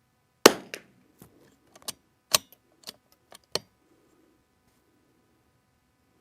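A .22 LR rifle fires one shot, a single sharp crack with a short ring-off, followed by a quick series of metallic clicks as the bolt is worked to eject and chamber the next round.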